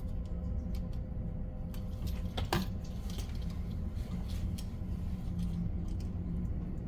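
Faint clicks and taps of wires and a screwdriver on a GFCI outlet's terminal screws as it is wired, with a sharper pair of clicks about two and a half seconds in, over a steady low hum.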